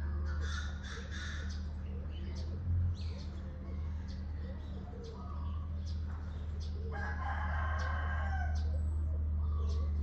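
A rooster crowing, loudest in a long call of about two seconds starting around seven seconds in, while small birds chirp and a steady low hum runs underneath. A brief low thump about three seconds in.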